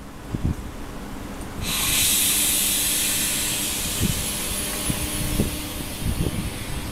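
SNCF Z 6400 electric multiple unit starting off: a sudden loud hiss of air from the brakes being released bursts out about two seconds in and slowly fades, over a steady low hum from the train as it begins to pull away.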